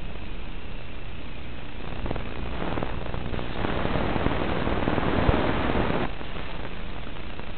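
Steady hiss of static from an analog FPV video receiver, with no engine or propeller sound in it. The static grows louder from about two seconds in and drops back about six seconds in, while the video link weakens and the picture breaks up.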